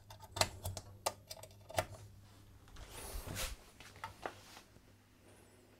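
Clicks and knocks of hands working the controls of a valve radio: a few sharp clicks in the first two seconds, a brief rustle around three seconds and another click a little after four seconds. A faint steady low hum lies underneath.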